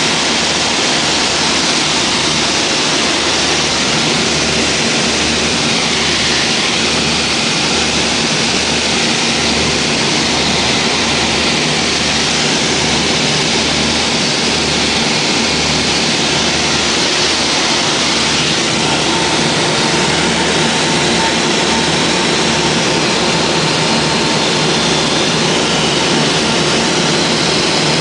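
Beechcraft Duchess twin piston engines and propellers droning steadily, heard loud inside the cabin, with a regular low throb running under the noise.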